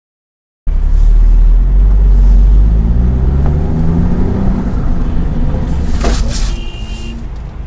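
Dashcam car's engine and road noise heard from inside the car, the engine note rising from about two seconds in, then a sharp impact about six seconds in as a sedan strikes the SUV just ahead, followed by a brief high beep.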